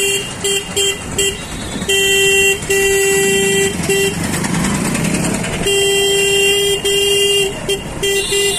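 A vehicle horn honking over and over amid street traffic, all at one steady pitch: quick short toots near the start and again near the end, with long held blasts in between.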